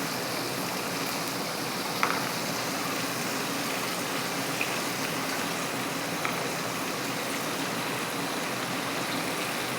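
Hot oil sizzling steadily as flour-coated chicken skin deep-fries in a pan, with a few faint clicks.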